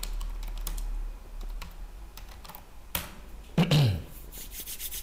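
Typing on a computer keyboard: a run of sharp key clicks. About three and a half seconds in, a short voiced murmur falls in pitch, then the clicking goes on.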